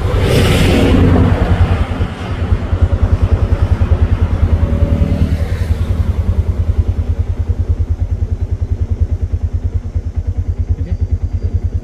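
Auto-rickshaw engine running on the move, a steady rapid low pulsing, with a broad rush of noise during the first second or so.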